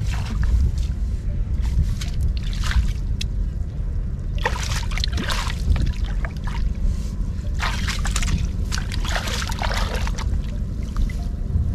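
Water splashing and sloshing in irregular bursts, over a steady low rumble.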